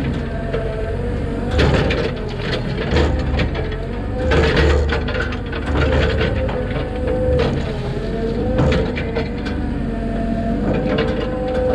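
Mini excavator's diesel engine running under load, with a hydraulic whine whose pitch wavers up and down as the boom and swing are worked. Scattered knocks and clanks from the machine come throughout.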